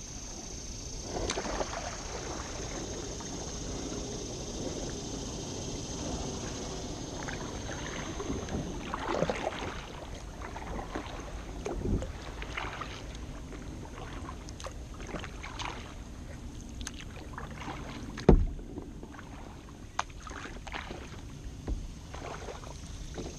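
Kayak paddling: the paddle blades dip and swish through the water at irregular strokes, with a sharp knock about two-thirds of the way through, the loudest sound, and a few lighter clicks after it.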